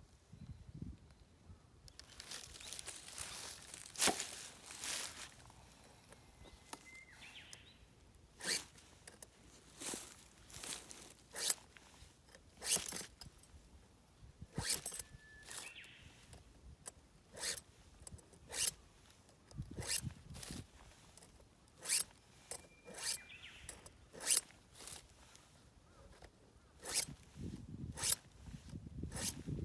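A run of short, irregular rasping strokes about every second or so, with a bird chirping briefly four times.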